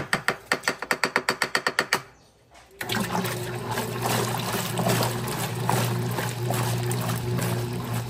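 A quick run of even clicks, about nine a second for two seconds, like a washer's control knob being turned through its detents. After a short pause, water starts rushing steadily into the tub of an Electrolux Top 8 top-loading washing machine, with a constant hum from the fill valve.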